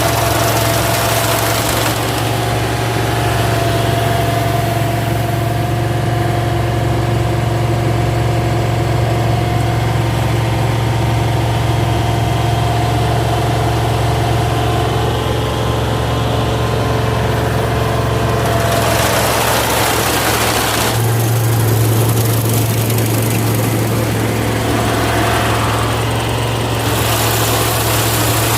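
Engine of a small tracked rice harvester running steadily, just restarted after its broken drive belts were replaced; the note shifts slightly about two-thirds of the way through.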